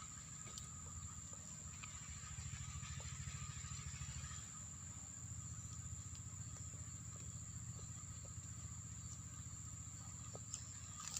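Engine of a distant wood-cutting machine running steadily, a low hum that swells a little for a couple of seconds, with a steady high insect drone above it.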